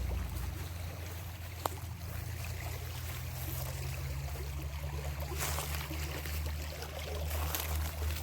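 River water flowing steadily, an even hiss over a low rumble, with one short click about one and a half seconds in.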